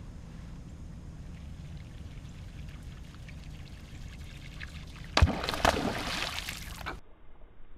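A bass striking a topwater lure: a sudden loud splash about five seconds in, followed by a second or so of spraying, churning water. Before it, only a low steady rumble.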